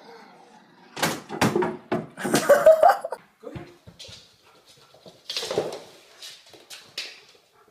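A dog vocalising in a run of short, loud sounds about one to three seconds in, one of them wavering in pitch, then a quieter group about five to seven seconds in.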